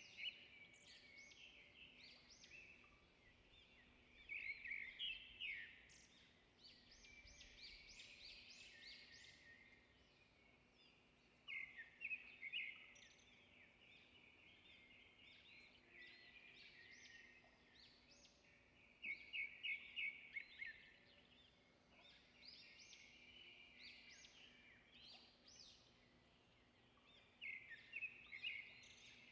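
Faint scratching of oil pastel on paper: quick back-and-forth colouring strokes that come in four short bursts, with lighter strokes between them.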